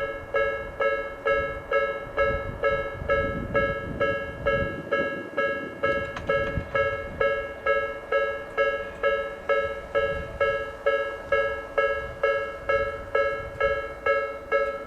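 Japanese railway level-crossing electronic warning bell starting up suddenly and ringing in an even, repeated "kan-kan" at about two strokes a second, each stroke a bright ringing two-note tone that dies away before the next: the crossing is warning of an approaching train.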